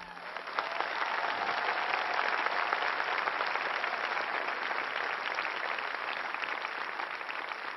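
Theatre audience applauding, swelling up within the first second and then holding steady.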